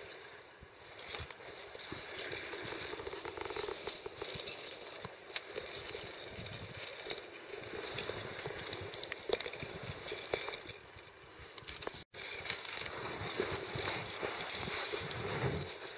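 Gill net being drawn over the snow and down into an ice-fishing hole as it is pulled in from the far hole: a steady scraping hiss with many small ticks from the mesh, floats and lead line. The sound cuts out for an instant about twelve seconds in.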